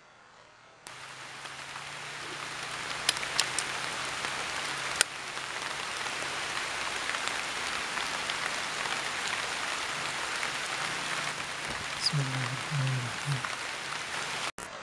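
Steady hiss of rain falling, with a few sharp drop-like clicks, starting abruptly about a second in and cutting off just before the end. A few short low sounds come near the end.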